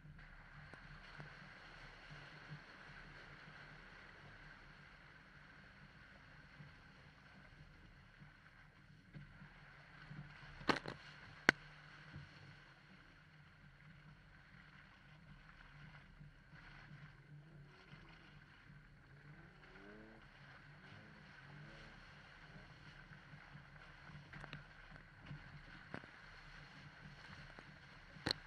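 Jeep engine running with a faint, steady low drone. Two sharp knocks come about eleven seconds in, and another near the end.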